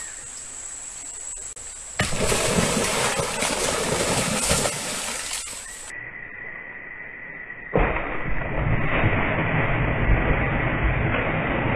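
Water splashing and churning as a big fish strikes and thrashes at the surface. There is a rushing stretch, a brief quieter dip, then loud splashing from about eight seconds in.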